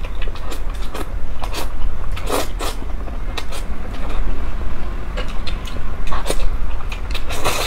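Close-up eating sounds: saucy noodles being slurped and chewed, with wet smacking and clicking mouth noises coming in irregular bursts over a steady low hum.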